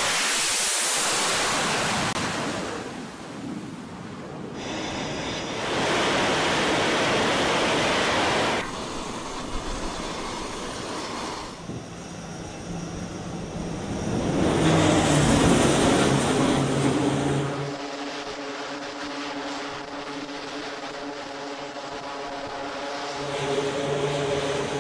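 Carrier aircraft noise on a flight deck, cut together from several short clips: jet engine and wind noise that changes abruptly with each cut, and a steady turboprop drone with a hum of several tones over the last several seconds.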